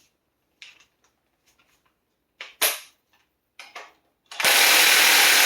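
A few light clicks, then about four seconds in a large cordless DeWalt impact wrench starts hammering hard at a harmonic balancer bolt through a standard socket, a fast continuous metallic rattle with a ringing 'tinging' that does not break the bolt loose.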